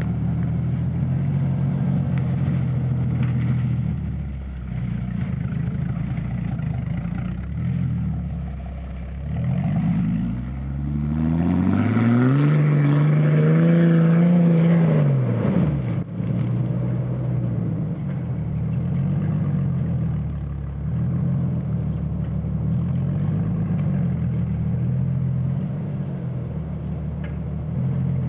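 Jeep Wrangler TJ engine running off-road, heard from outside as it works along the trail. About eleven seconds in it revs hard for about four seconds, the pitch climbing and then falling, as the Jeep drives up a hill. After that the revs rise and fall in short repeated swells.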